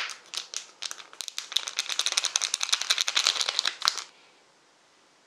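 Thin plastic food packet crinkling and crackling in the hands as it is opened and emptied, a dense run of small crackles that stops about four seconds in.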